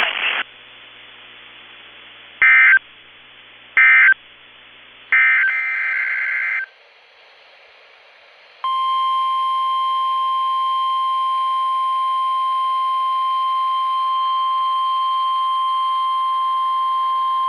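Three short bursts of warbling SAME digital data tones, as sent at the end of an Emergency Alert System message. From about nine seconds in comes the steady 1050 Hz NOAA Weather Radio warning alarm tone, a single unbroken beep held for about nine seconds.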